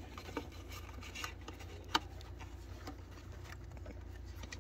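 Faint handling noises as a new ribbed rubber auxiliary belt is worked by hand over the engine's pulleys: light rubbing and small ticks, with one sharper click about two seconds in, over a low steady hum.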